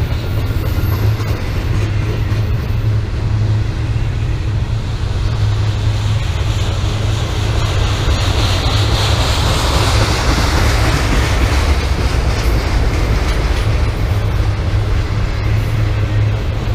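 Intermodal freight train rolling past, its cars' wheels running on the rails over a steady low rumble; the rolling noise brightens and swells in the middle.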